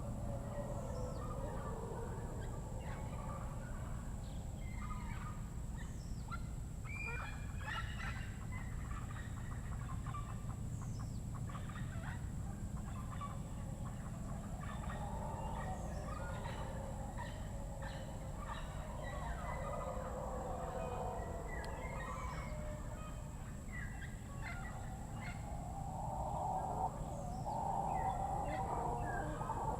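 Panamanian rainforest chorus at sunset: many birds giving short, repeated calls, over a lower, wavering chorus of animal calls that swells near the end. A steady high whine runs underneath.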